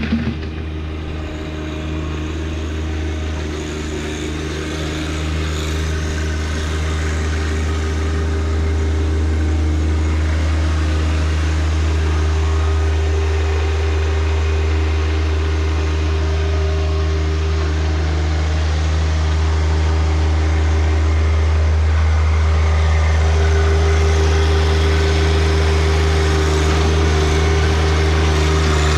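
John Deere 1025R compact tractor's three-cylinder diesel engine running steadily, a constant low hum with a brief click at the start.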